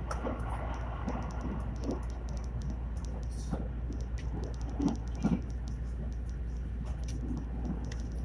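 A JR train running at speed, heard from inside the carriage: a steady low rumble with scattered light clicks and rattles, and two louder knocks about five seconds in.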